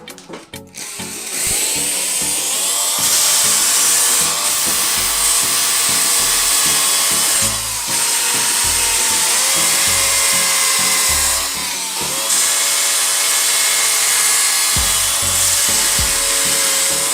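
Electric power tool running steadily on wood, its motor whine dipping briefly in pitch three times as it is loaded. Background music plays underneath.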